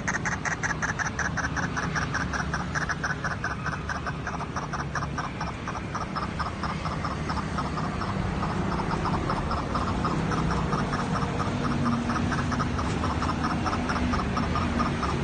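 White-breasted waterhen calling: a long, fast, unbroken series of repeated croaking notes.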